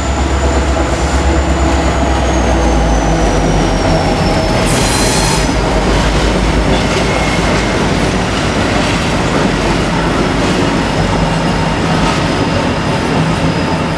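Diesel locomotives of an empty grain train passing at low speed, their engines giving a deep rumble, with a high wheel squeal gliding slowly down in pitch. A short hiss comes about five seconds in. After that the empty grain wagons roll past with a steady clatter over the rail joints.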